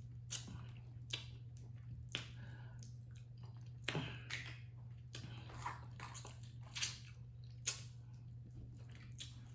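A person eating saucy shrimp and snow crab with her fingers: quiet wet chewing, finger-licking and lip smacks, heard as scattered brief, irregular clicks. A low steady hum runs underneath.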